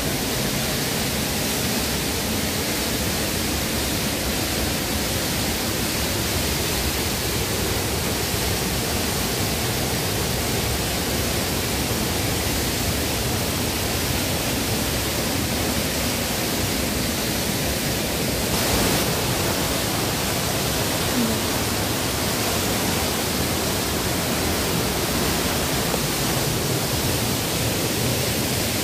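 Steady, even rush of a waterfall and river water running over rocks.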